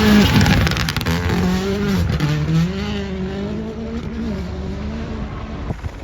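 Rally car engine pulling hard along the stage, its pitch climbing and dropping several times through gear changes, loudest at first and fading as the car drives away.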